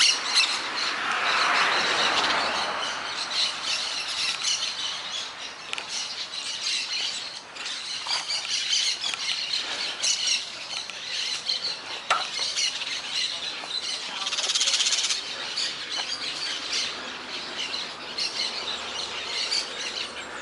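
Many birds chirping, calling and squawking together in the trees: a dense morning chorus. A broad rush of noise swells and fades over the first few seconds.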